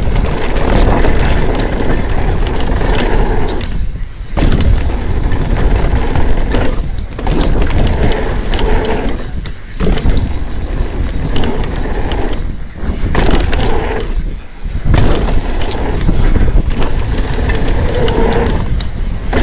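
Downhill mountain bike riding fast down a dirt and gravel trail: steady tyre rumble and crunch with the bike rattling, and wind on the microphone. The noise drops away for a moment several times.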